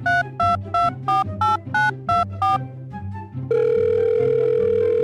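Telephone keypad tones: a quick run of about ten short two-note dialing beeps, roughly three a second, then one loud steady tone starting about three and a half seconds in, over background music.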